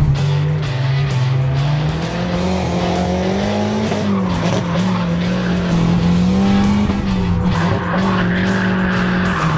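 Nissan 240SX S13 drift car's turbocharged four-cylinder engine held high in the revs, its note wavering up and down as the car slides. Tyre squeal comes up strongly about eight seconds in, the sign of the rear tyres burning under power.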